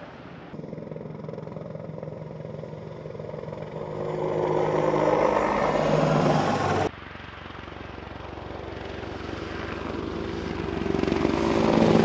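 AH-64 Apache's twin turboshaft engines and rotor blades, a helicopter flying past with a steady turbine whine over a rhythmic rotor chop. It grows louder, cuts off suddenly about seven seconds in, then builds up again to its loudest near the end.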